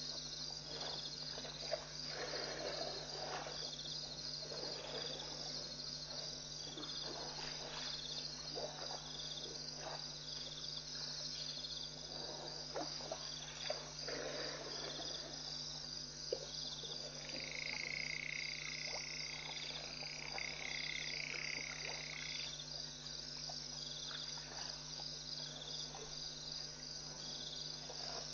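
Night chorus of crickets chirping steadily in fast pulses, with a frog giving two long trills a little past the middle. Soft splashes and slurps from elephants drinking at the water's edge come and go, over a low steady hum.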